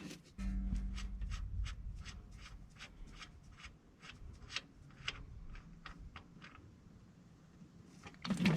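Oil starting to gush from an opened drain plug on a Massey Ferguson 135's gearbox, a low rushing that begins suddenly about half a second in and slowly fades, with scattered light ticks throughout.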